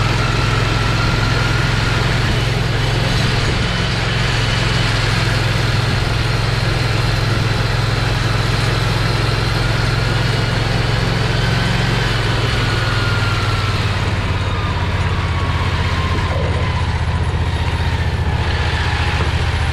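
Predator 670 V-twin engine of a home-built golf-car limo running at a steady, low speed as it drives, with a faint higher whine that slowly rises and falls in pitch.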